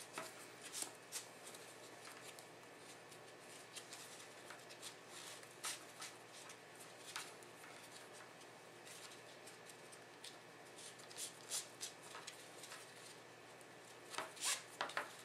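Faint rustling and scraping of braided cord pulled by hand through a monkey's fist knot as its turns are tightened around a marble core, with scattered small clicks that bunch up near the end.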